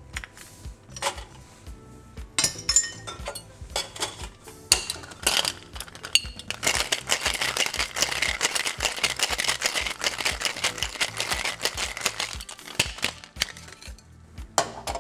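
Ice clinking in a metal Boston shaker tin set, then a cocktail shaken hard: a dense, rapid rattle of ice against steel for about six seconds in the middle. A few separate metal knocks near the end as the tins are broken apart.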